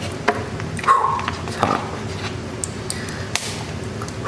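Scattered light clicks and clinks of cutlery on a dish as cooked meat is picked apart, with a brief high whine about a second in.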